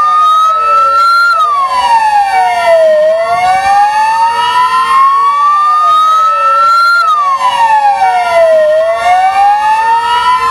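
Two fire-engine sirens wailing together out of step, each tone rising slowly over about four seconds and then falling more quickly, over and over.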